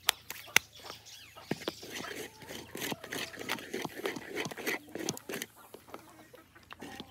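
A wooden stirring stick knocks sharply twice against an aluminium cooking pot, then stirs and swishes through thin, steaming porridge for several seconds.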